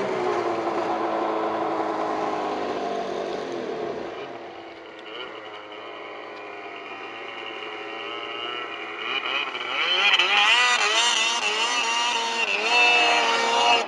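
Snowmobile engines running hard on a climb, the revs wavering up and down. One sled's engine fades away about four seconds in, and another grows louder from about eight seconds in, loudest near the end.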